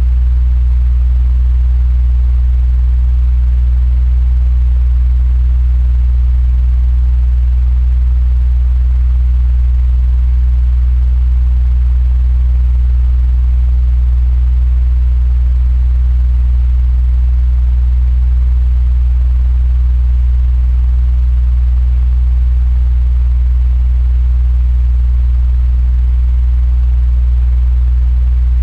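Electric fan running steadily: a constant deep hum with a faint airy hiss above it.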